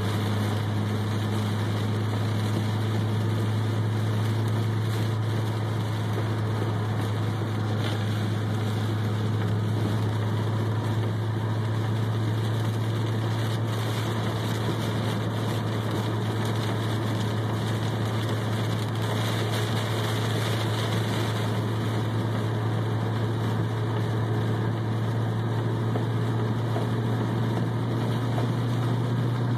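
Inside a Pontiac GTO cruising on a highway through torrential rain: a steady low V8 engine drone under a constant wash of rain and tyre spray on the car. The drone rises a little in pitch near the end.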